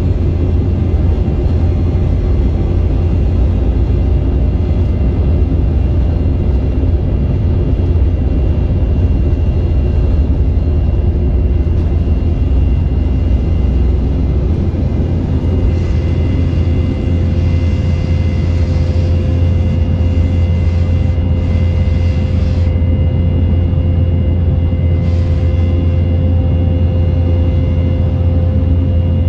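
Steady cabin rumble of an Embraer 190 airliner, its two GE CF34 turbofan engines running, heard from inside the passenger cabin. A steady higher hum grows in about halfway through.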